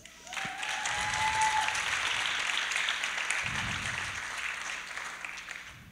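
Auditorium audience applauding. The clapping swells quickly, holds, then fades out over several seconds.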